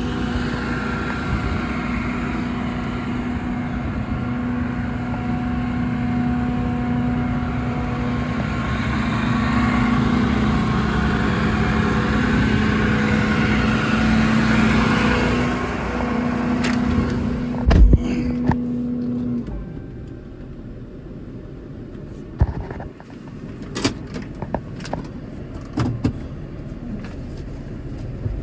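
Ram 5500's 6.7 Cummins diesel engine running steadily with a constant low hum, a sharp thump about 18 seconds in, then the engine stops. Scattered clicks and knocks follow.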